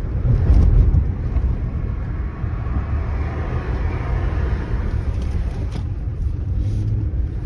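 Road and engine noise inside the cabin of a moving car: a steady low rumble, loudest about half a second in.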